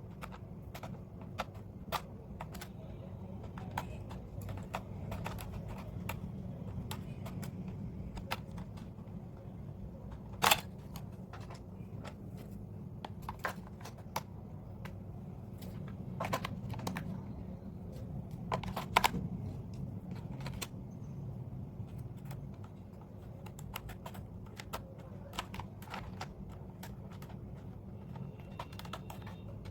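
Irregular light clicks and taps of plastic toy pieces and packaging being handled, over a low steady hum, with a sharper knock about ten seconds in and another near nineteen seconds.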